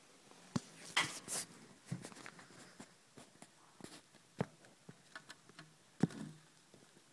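Handling noise: scattered clicks and knocks with soft rustling between. The sharpest come about half a second in, around a second in, past four seconds and at six seconds.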